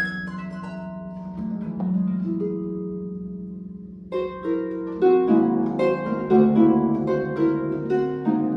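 Solo concert harp playing. A chord plucked at the start rings and fades for a few seconds, then about four seconds in a louder, busier passage of plucked notes and chords begins.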